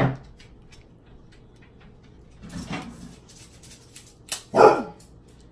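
Close-miked eating: chewing with light clicks and crackles of crab and crawfish shell being handled, broken by a few louder short sounds, the loudest about four and a half seconds in.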